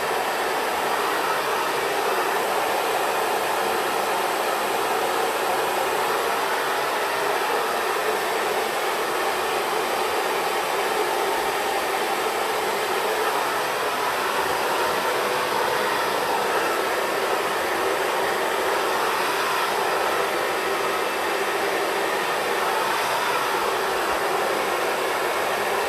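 Xtava Pro hair dryer blowing steadily, a constant even rush of air and motor noise.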